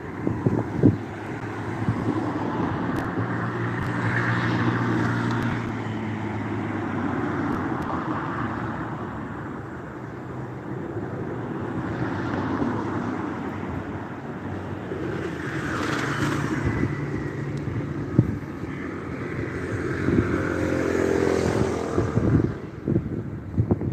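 Motor vehicles passing on a city street, their engine hum swelling and fading over a steady traffic noise.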